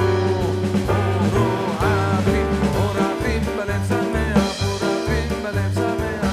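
Background music in a swing style, with a moving bass line under a wavering melody.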